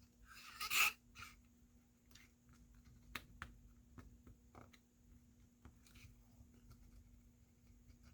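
Quiet handling sounds of a spudger pressing double-sided adhesive tape onto a phone's frame: a short hissing rush about a second in, then a few faint ticks and light rubs.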